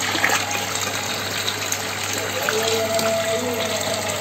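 Water running and splashing in a glass fish tank, churned by a hand moving through it, over a steady low hum.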